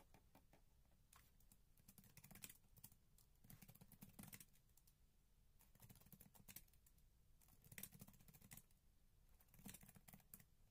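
Faint, slow typing on a computer keyboard: scattered keystrokes in small irregular clusters with pauses between them.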